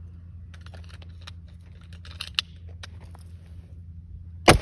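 One gunshot near the end, a full metal jacket round fired at an armour test plate: a sharp crack with an echo trailing off. Before it, small scattered clicks and one sharper click about two seconds in, over a low steady hum.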